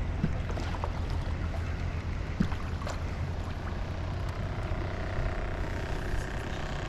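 Wind rumbling on the microphone, with a few light clicks and taps from handling.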